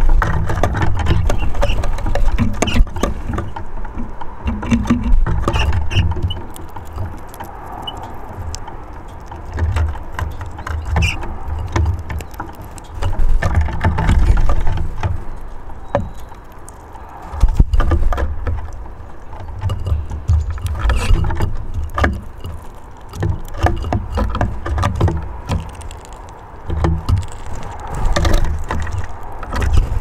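Low rumble that swells and fades every second or two, with many scattered sharp clicks and taps.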